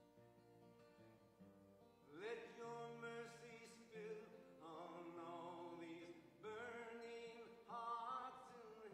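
A man singing a worship song to his own acoustic guitar, faint. For the first two seconds only the guitar plays, then the voice comes in with several sung phrases.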